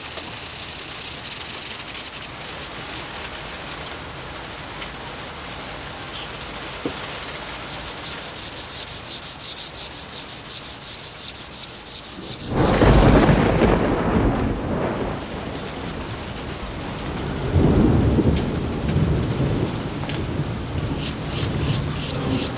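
A small metal block rubbed back and forth on sandpaper laid flat, a steady rasping of quick, even strokes as its sides and edges are smoothed to 600 grit. About halfway through, loud thunder rumbles for a couple of seconds, with a second swell a few seconds later, and the sanding strokes come back near the end.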